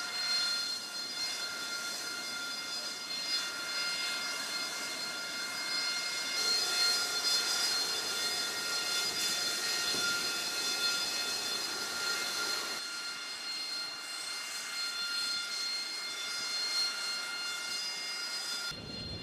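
AV-8B Harrier II's Pegasus turbofan running steadily with a high jet whine made of several held tones over a rushing hiss. The sound shifts abruptly about two-thirds of the way through.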